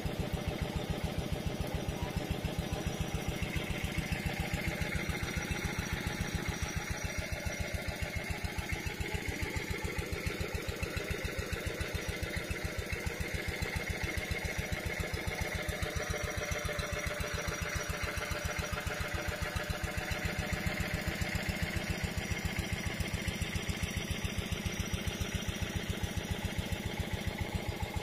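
A stationary engine running steadily at low speed with an even, regular beat, most likely the engine driving the water pump that feeds the large green discharge hose.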